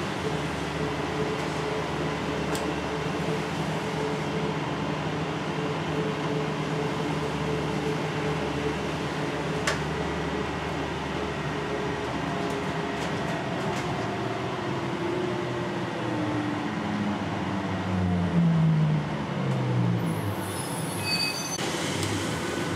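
NAW trolleybus's electric drive running on the move, heard from inside the bus: a steady whine whose tones slide down in pitch as it slows, about twelve seconds in. Low tones rise and fall near the end, and brief high squeals come a couple of seconds before it ends.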